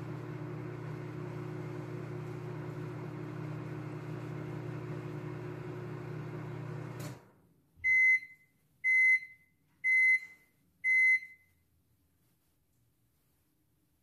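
Microwave oven running with a steady hum that cuts off about seven seconds in. It then gives four short, high beeps about a second apart, the signal that the heating cycle has ended.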